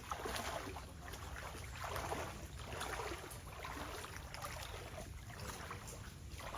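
Footsteps wading through a shallow river, the water swishing roughly once a second over a steady low rumble.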